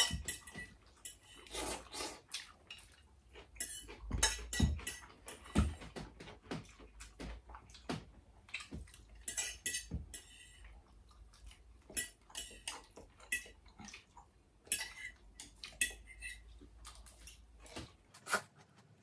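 Fork clinking and scraping against a plate while eating, in many short, irregular clinks with brief gaps between them.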